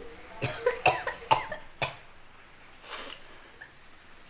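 A woman coughing in a run of short bursts, about four in the first two seconds, then a softer one near three seconds in. It is a coughing fit brought on by sniffing red chili powder.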